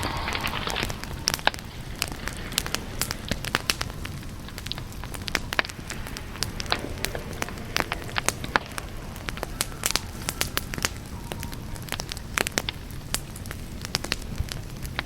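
Campfire crackling, with irregular sharp pops and snaps over a steady low rush of flame. A short hiss comes right at the start.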